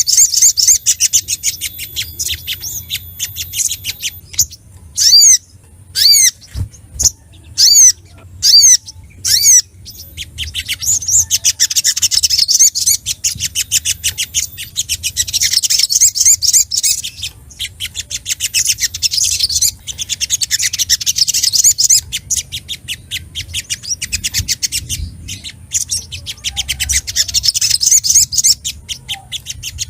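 Sogok ontong (little spiderhunter) calling excitedly in fast, chattering trains of high chirps. About 5 to 10 seconds in, the trains break into a string of loud, separate, sharp notes.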